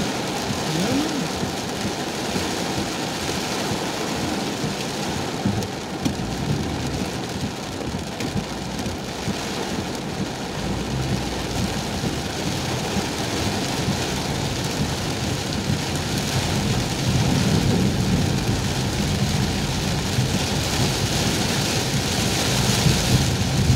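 Very heavy tropical rain pelting a car's roof and windshield, heard from inside the cabin as a steady, dense hiss. A low rumble underneath grows stronger in the second half.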